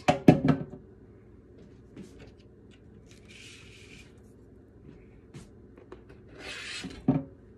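Kitchen handling sounds: sharp knocks at the start, then two short scrapes, the first as a kitchen knife is drawn across a plastic cutting board, and a single knock near the end.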